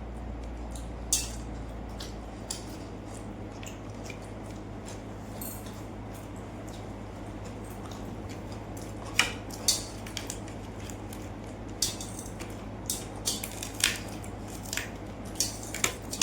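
Close-up eating sounds: wet squishing and chewing of watery rice and fried fish, with scattered sharp clicks and crunches, most of them in the second half, over a steady low hum.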